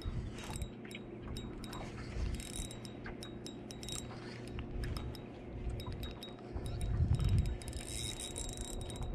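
Light, irregular clicks and clinks of a spinning reel and fishing rod being handled while a fish is played, with a low rumble about seven seconds in.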